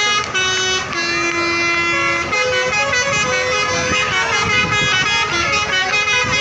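Bus telolet horns, the multi-tone musical air horns of Indonesian coaches, playing stepped melodic tunes. Several horns overlap and answer one another, their notes jumping up and down in pitch.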